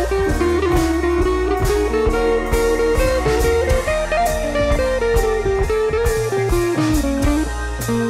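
Background music: a bluesy guitar melody over a steady drum beat.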